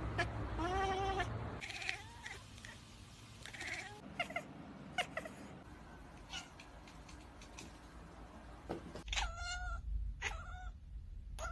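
Domestic cat meowing several times: an arching meow about a second in, short ones around the second and fourth seconds, and two louder, drawn-out meows near the end, with scattered light clicks and knocks in between.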